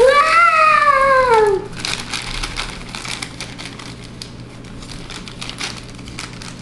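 One long high-pitched vocal cry that rises and then falls over about a second and a half. Then a plastic bag crinkling and chocolate chips pattering into a plastic mixing bowl of cookie dough, as a stream of small clicks and rustles.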